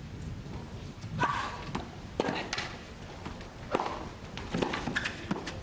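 Tennis rally: a tennis ball struck back and forth with rackets and bouncing on a hard court, sharp strikes about a second apart. A steady background hiss runs underneath.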